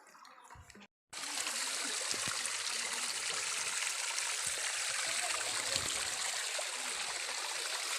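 Water of a low-flowing waterfall stream running over rocks: a steady rushing sound that starts abruptly about a second in, after a brief silence.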